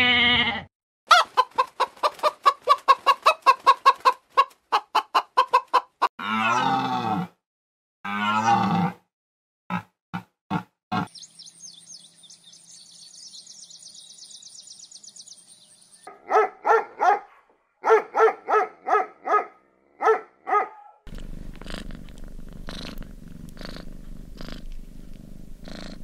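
A run of different animal sounds, one after another and cut short: a goat's bleat ending just under a second in, then rapid rhythmic calls, two falling calls, a few clicks, a high steady buzz for about five seconds, more rhythmic calls, and a low steady rumble over the last few seconds.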